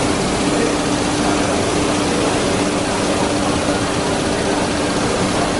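Five-axis CNC router spindle running and carving into a wooden panel: a steady hiss of cutting noise over a steady hum.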